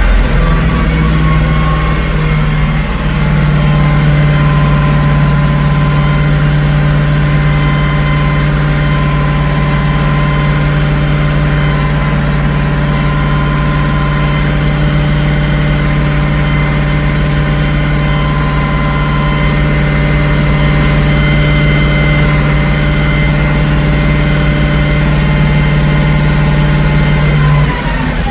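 2017 Ford E450's 6.2-litre gasoline V8 held steadily at about 2000 rpm during a misfire test, then the revs drop near the end as the throttle is let off. The scan tool counts misfires on cylinders 1, 5, 6 and 3 during this run.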